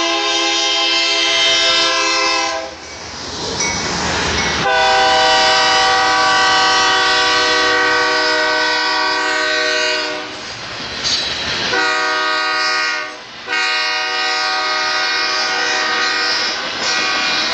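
BNSF freight locomotive air horn sounding a crossing-style sequence of blasts: a long one ending about three seconds in, a long one from about five to ten seconds, a brief toot about eleven seconds in, then two more long blasts. In the gaps the locomotives and double-stack container cars rumble past.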